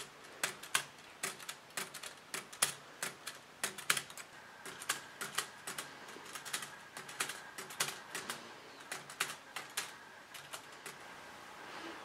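Keys of a 1915 Underwood No. 5 manual typewriter struck one at a time, the typebars clacking in an irregular rhythm of a few strokes a second. The clacking stops near the end.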